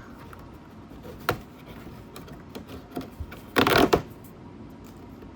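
Cardboard advent-calendar door being torn open and handled: a sharp click about a second in, then a short loud rip of card past the middle, with small clicks in between.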